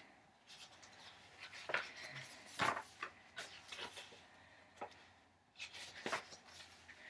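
Paper rustling and rubbing as sheets or pages are handled in the lap, in a run of uneven scrapes, the loudest about a third of the way in and again near the end.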